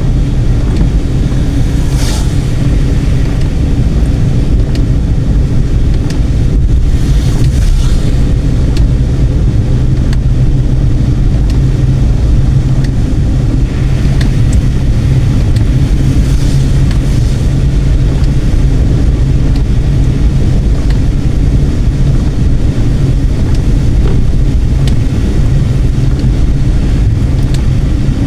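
Road and wind noise of a moving car: a loud, steady low rumble, with a few brief rushes of higher hiss.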